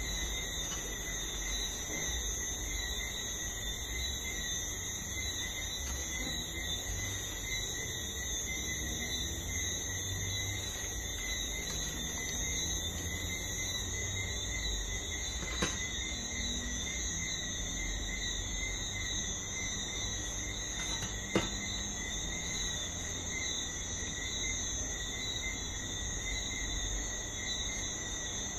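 A steady high-pitched whine, several even tones stacked above one another, over a low background rumble, with two faint short taps about halfway through and again past two-thirds.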